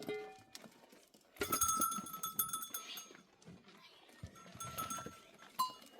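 Bells on a flock of sheep and goats ringing and clanking as the animals move, in two longer stretches and a brief strike near the end, with a short bleat at the very start.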